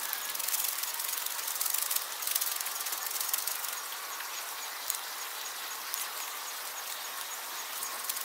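Steady high-pitched insect buzzing with a regularly repeated chirp, louder and scratchier in the first four seconds.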